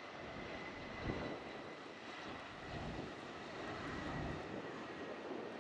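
Engines of an easyJet Airbus A320-family jet airliner on final approach and flare, a steady jet noise with a faint high whine running through it and a few low rumbling swells.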